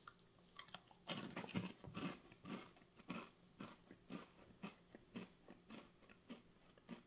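Close-up chewing of a Ruffles Double Crunch ridged potato chip: a bite, then a run of sharp crunches, densest and loudest in the first two seconds, then about two a second growing fainter.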